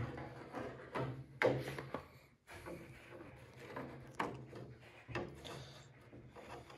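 Handling noise inside a wooden model-airplane fuselage: a push rod scraping and knocking against the plywood formers as it is fed through, with scattered sharp knocks and rubbing over a low steady hum.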